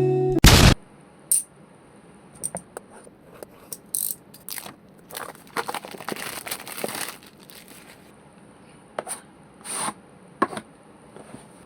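Unboxing the packaging by hand: a loud, short burst of noise about half a second in, then scattered clicks and light scrapes. A stretch of rustling and crinkling comes in the middle and another sharp rustle near the end.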